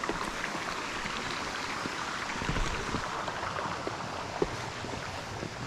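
Creek water rushing steadily over rocks, with a few light clicks and knocks mixed in.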